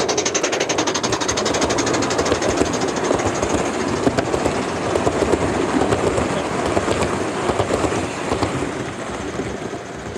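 Gauge 1 model train running past, its wheels clicking rapidly over the rail joints. The sound fades as the train draws away.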